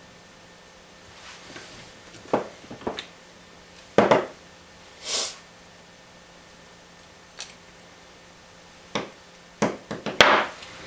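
Wire cutters snipping the conductor ends of a heavy 30-amp cord, with clicks and knocks of the plastic plug and tools being handled. The sounds come singly, a few seconds apart, then bunch together near the end.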